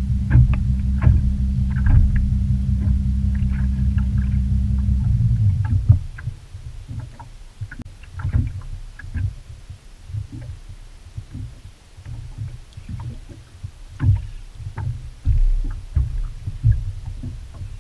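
Boat's outboard motor running steadily at idle, then cutting out about five and a half seconds in. Scattered light knocks and taps follow.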